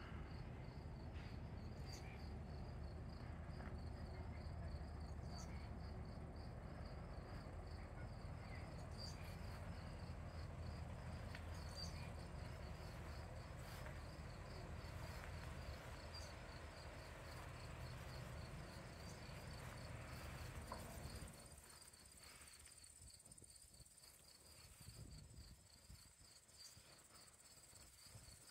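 Crickets chirping in an even, rhythmic pulsing trill, with a fainter, higher steady insect hiss above it. A low background rumble drops away about 21 seconds in, leaving the insects alone.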